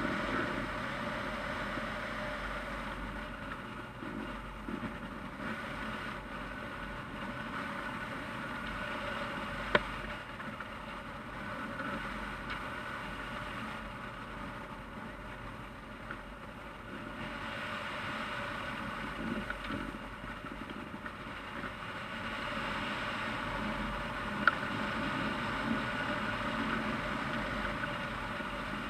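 Steady rush of wind over the microphone of a camera mounted on a hang glider in flight, with two brief sharp clicks far apart.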